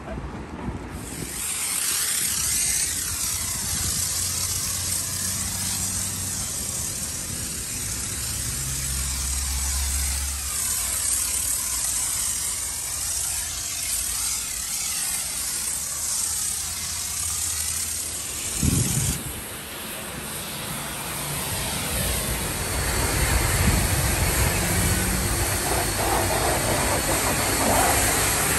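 High-pressure washer jet spraying the caravan's fibreglass body: a steady loud hiss whose tone slowly sweeps as the lance moves, over a low hum. The hiss changes character about two-thirds of the way through.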